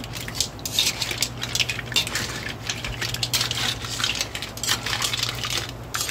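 Metal spatula scraping and clattering in an aluminium wok as crabs, mussels and prawns are tossed and stirred, with shells clinking against each other and the pan. The clatter is dense and irregular, over a low steady hum.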